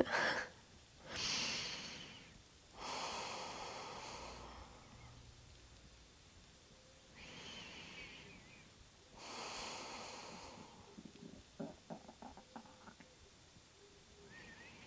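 A woman's soft, slow breathing while lying at rest: two breath cycles, each a short inhale followed by a longer exhale, with a few faint small clicks about twelve seconds in.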